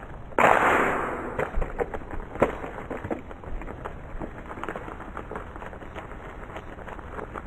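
A sudden crash about half a second in as a plastic toy motorcycle is knocked off a brick onto dirt, dying away over about a second. Scattered small clicks and ticks follow.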